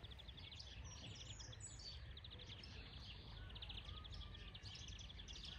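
European greenfinch singing: fast, rattling trills of repeated notes mixed with higher twittering chirps, over a steady low background rumble.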